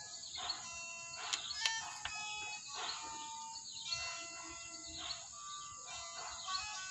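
Background music of held notes that change in steps, with a few sharp clicks between one and two seconds in.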